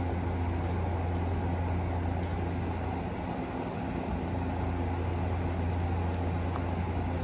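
Steady low hum from a stationary E257 series 500 electric train's onboard equipment, with several steady tones over it.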